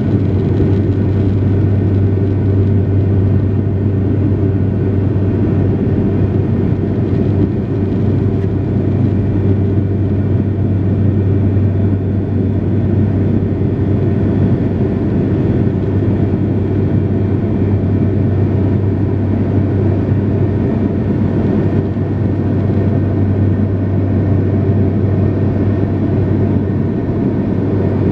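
Steady cabin drone of a Sukhoi Superjet 100's twin PowerJet SaM146 turbofans at climb power, heard inside the cabin, with a low hum over the rush of airflow.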